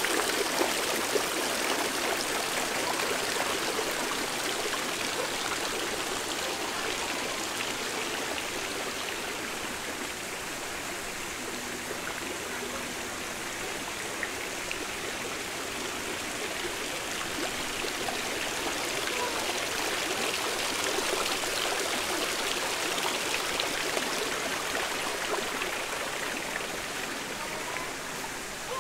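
Steady rushing of running water, like a stream or small cascade, fading somewhat partway through and growing louder again later.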